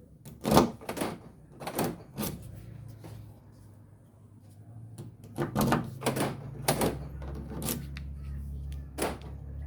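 A series of sharp clunks and clicks, about nine in all, like a car door and its locks being worked, with a low steady hum coming in about halfway.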